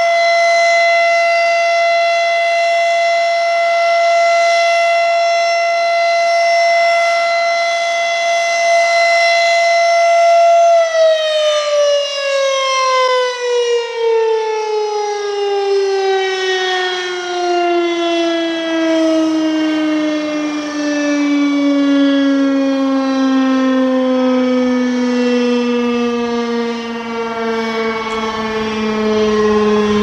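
RSH-10 "Thunderbeam" outdoor warning siren sounding a steady alert tone. About eleven seconds in, the alert ends and the siren winds down, its pitch falling slowly and smoothly as it coasts to a stop.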